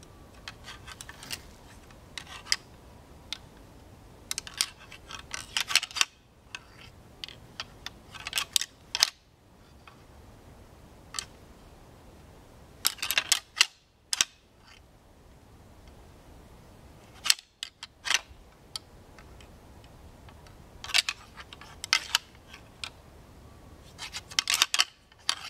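A pair of deer antlers clashed and ground together in short bursts of sharp clacks and ticks, about seven bursts with pauses between. This is rattling, which mimics two bucks sparring to draw in a buck.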